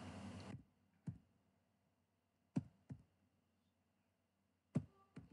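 Faint computer keyboard keystrokes as digits are typed: about five short, separate clicks at uneven spacing.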